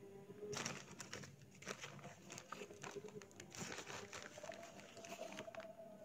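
Wheat flour being spooned into a frying pan: soft scraping and rustling of the spoon scooping and tipping the flour, in a few short bursts about a second apart.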